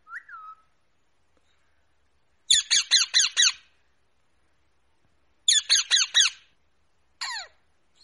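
Rose-ringed parakeet screeching: a short call at the start, then two quick runs of about five harsh squawks each, a few seconds apart, and one more single squawk near the end.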